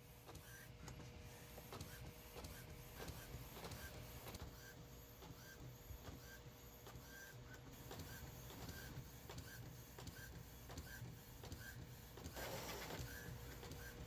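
Epson XP-15000 inkjet printer printing a page, faint: the print-head carriage shuttles back and forth in small regular ticks over a steady hum, with a short louder whirr about twelve seconds in.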